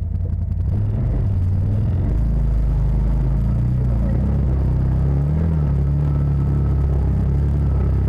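Side-by-side UTV engine running under load as the machine drives along a dirt trail, heard from inside the cab; the engine picks up about a second in and then holds a steady low drone.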